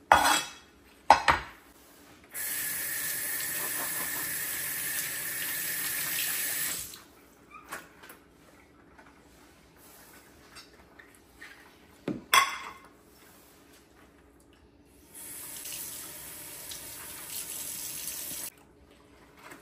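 Kitchen tap running into a sink in two spells, the first louder, as raw chicken thigh pieces are rinsed under it. A few sharp knocks come near the start and once more about midway.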